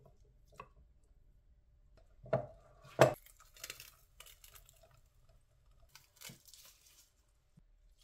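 Potato ricer being loaded and pressed: two sharp knocks as it is handled, about two and three seconds in, then soft squishing and crackling as cooked food is forced through its holes.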